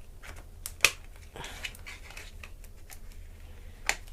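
Plastic latches of a ThinkPad E450's LCD bezel snapping loose as a credit card is worked around the screen's edge: scattered small clicks, with two sharp snaps, one about a second in and one near the end.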